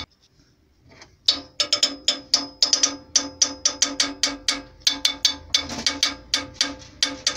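Background music made of fast, even percussive clicking notes, about six a second. It starts after a pause of about a second.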